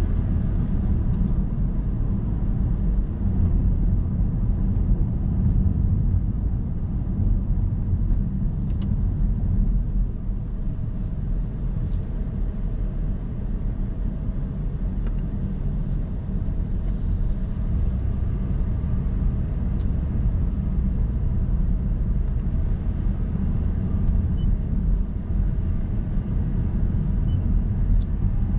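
Car driving along a road: steady low engine and tyre rumble, with a few faint clicks.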